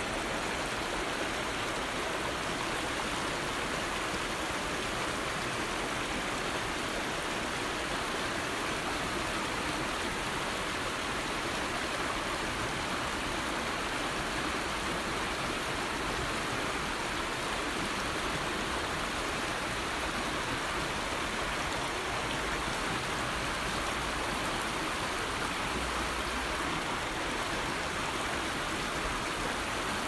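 A shallow forest river flowing steadily over riffles, an even splashing hiss of water that stays the same throughout.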